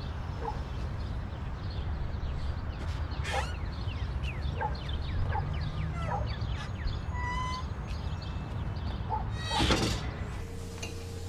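Small birds chirping in quick rising and falling calls over a low steady outdoor rumble, with a door thump about three seconds in and a louder burst of noise near the end.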